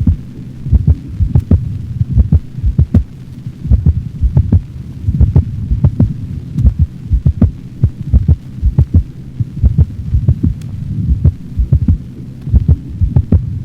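Recorded dog heart sounds through a stethoscope: a fast run of beats over a steady low hum.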